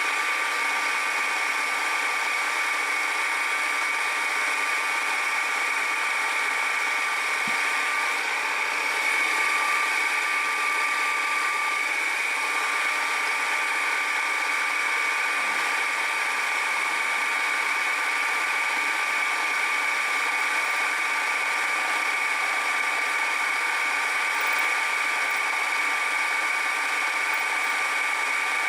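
Metalworking machine tool running steadily with its spindle at about 800 RPM, a constant whine over even machine noise, while a light cut of a few tenths of a millimetre is being fed.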